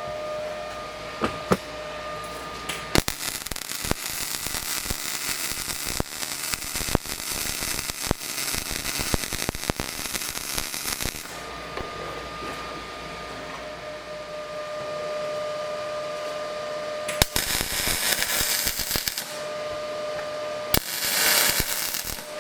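Arc welding on a steel swing arm: the arc crackles and sputters in three runs, a long one of about eight seconds and two short ones near the end, with a steady hum at two pitches in the pauses between runs.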